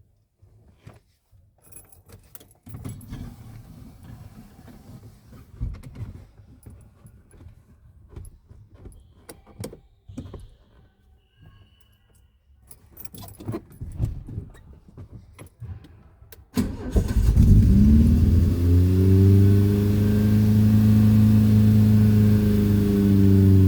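Keys jangling and handling clicks and rustles, then, about three-quarters of the way in, an old car's engine with a new aftermarket exhaust fires up. Its revs rise for a couple of seconds after the start and then settle into a steady idle.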